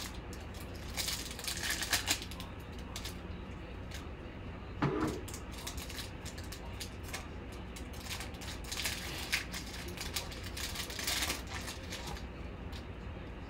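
Foil wrapper of a Panini Select football card pack being torn open and handled, crinkling in short crackly bursts about a second in, near nine seconds and again near eleven seconds.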